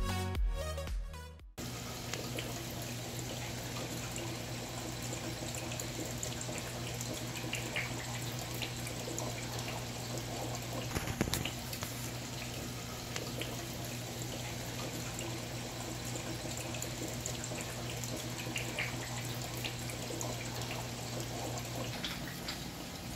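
Electronic music ends in the first second or two. Then water trickles and splashes steadily in a live eel holding tank, over a low steady hum that stops near the end. There is a brief knock about halfway through.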